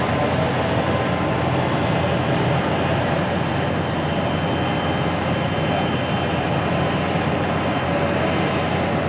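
Twin turboprop engines of an ATR airliner running steadily as it taxis, an even drone with a faint high whine.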